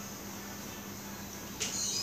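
A steady low hum, with high-pitched chirping that starts abruptly about one and a half seconds in.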